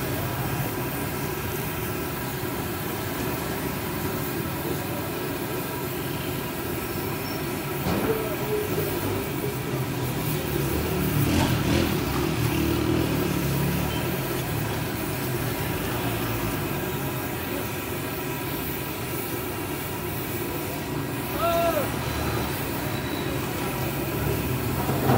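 Steady engine-like rumble with a faint even hum, over the hiss of a large karahi of small round gram-flour pakoras deep-frying in oil. A couple of sharp clicks, like the metal skimmer knocking the pan, about a third and halfway through.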